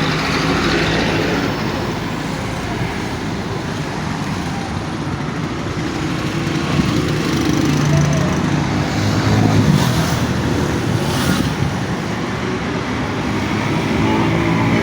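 A 30 HP, 8.5-size high-pressure air compressor running under a working test: a loud, steady mechanical drone with a low hum that wavers in strength. Two brief sharp sounds cut through about ten and eleven seconds in.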